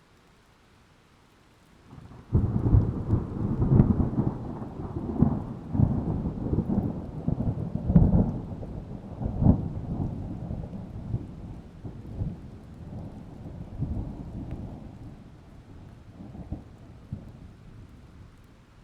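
Thunder: a sudden crash about two seconds in, then a long rolling rumble with several sharper cracks, slowly dying away.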